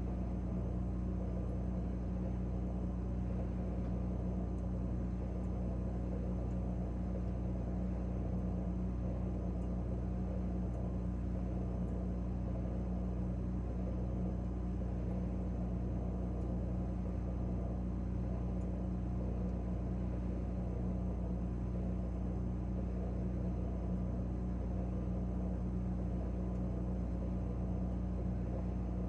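Refrigerator running, heard from inside the closed fridge: a steady low hum with a few held tones and no change.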